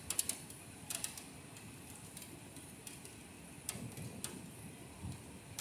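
Scattered sharp ticks and clicks over a low steady rumble: a quick cluster of ticks at the start, one about a second in, and two more near four seconds.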